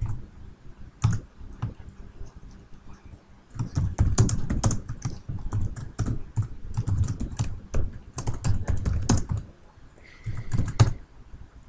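Typing on a computer keyboard: a few scattered key presses, then a steady run of key clicks for about six seconds, and a short flurry more near the end.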